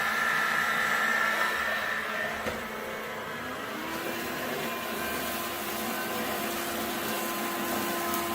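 Bosch Readyy'y Serie 2 20V cordless stick vacuum running with its motorised roller brush on a carpet. It makes a steady motor whine whose pitch shifts about halfway through, then settles into a steady lower hum.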